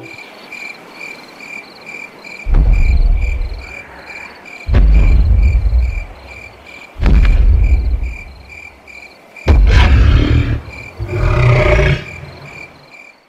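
Dinosaur sound effects over night-time crickets: steady rhythmic cricket chirping, with four heavy booming footsteps a little over two seconds apart. A low growling roar follows near the end.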